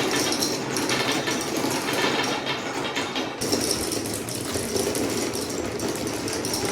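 A large number of marbles rolling and clattering down wooden Quadrilla spiral slopes and straight slopes, making a dense, continuous rattle.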